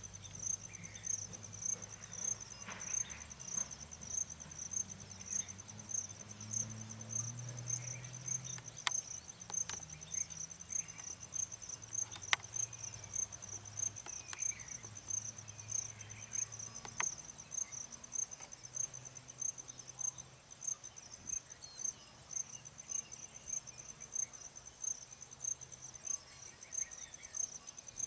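An insect chirping steadily in a high, even rhythm of about two chirps a second, with a few faint bird chirps and a few sharp clicks.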